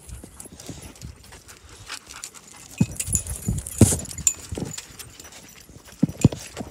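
Dogs barking a few times at a chain-link fence, short sharp sounds starting about three seconds in, the loudest near four seconds, with two more near the end.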